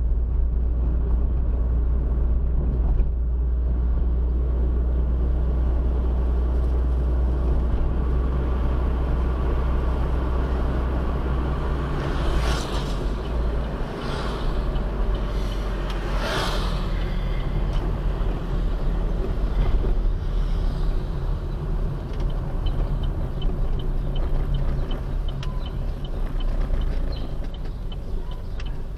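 Car engine and road noise heard from inside the cabin while driving, a steady low rumble. Two brief whooshes of vehicles passing come about twelve and sixteen seconds in.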